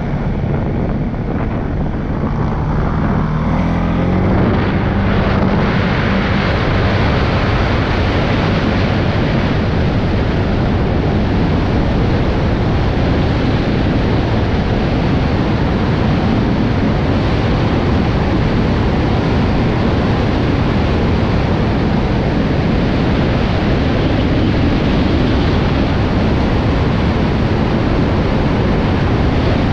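CFMOTO CForce 625S ATV's single-cylinder engine pulling up through its revs over the first few seconds, then running steadily at speed, with heavy wind rushing over the microphone.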